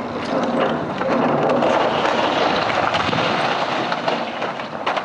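Brick walls and roof of a building breaking up and crashing down under a Caterpillar 345CL excavator's bucket: a dense rumble of crunching, falling masonry with many cracks, heaviest in the middle and ending with a sharp crack, the excavator's engine running underneath.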